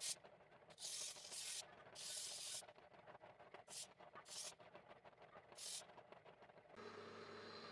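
Scratchy strokes of a hand tool working a piece of timber: about six short, irregular rasping strokes. A steady low hum starts near the end.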